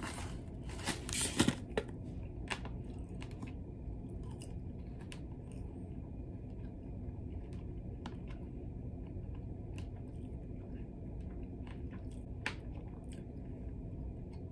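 Clear plastic snack packet crinkling in the hands for the first two seconds or so, then soft chewing with sparse faint clicks over the steady low hum of the moving ferry.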